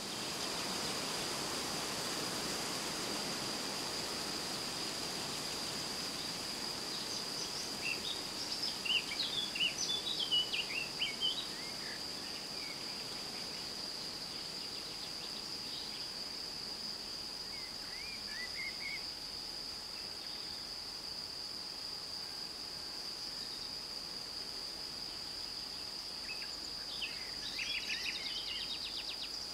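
Wind rustling through tree leaves as a steady hiss, under a continuous high-pitched insect drone. Birds chirp in short flurries about a third of the way in, briefly around the middle, and again near the end.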